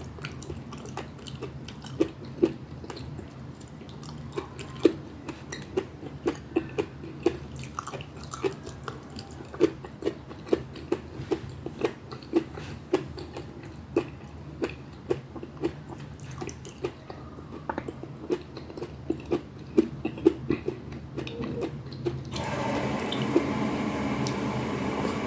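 Close-up mukbang eating sounds: a person chewing and smacking on a mouthful of pinakbet, with many short wet clicks, several a second, over a low steady hum. Near the end a louder steady noise starts and covers the eating.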